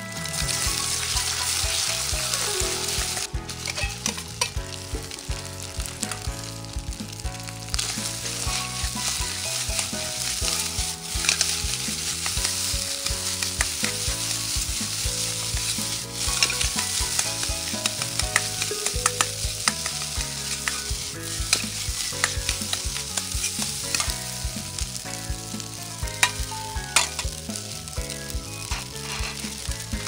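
Egg and rice stir-frying in a hot iron wok: a steady sizzle, with frequent sharp clicks and scrapes of a metal ladle against the wok as the rice is stirred and tossed.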